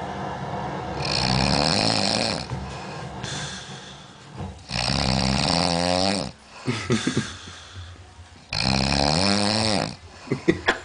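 A man snoring heavily, like a big old pig: three long, loud snores about every three and a half seconds, each lasting about a second and a half, with quieter breathing and a few short sharp sounds between them.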